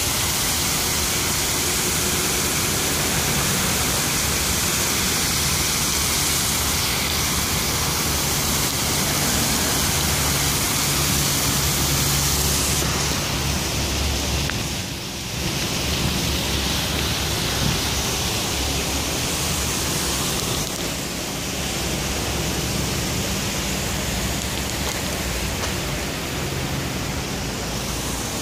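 Steady rushing and splashing of fountain water cascading down tiled steps into a pool, dipping briefly about halfway through.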